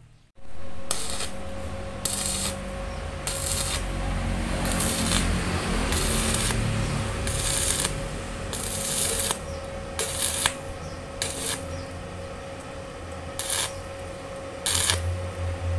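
Stick (arc) welding on a steel motorcycle frame: a steady crackling hiss of the arc with louder sputtering bursts every second or so, over a faint steady tone.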